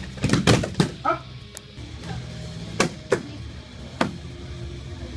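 Students' bodies and hands slapping onto padded martial-arts mats during breakfalls: a quick cluster of sharp slaps in the first second, then a few single slaps about three and four seconds in.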